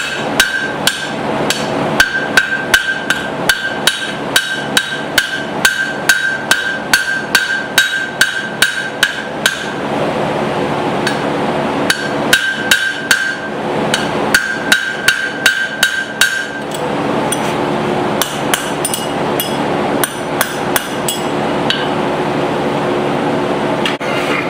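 Blacksmith's hammer striking a hot steel hammer head on steel tooling, at about two ringing blows a second. The blows stop for about two seconds at the ten-second mark, resume in a second run, then thin out to a few lighter taps, over a steady hum.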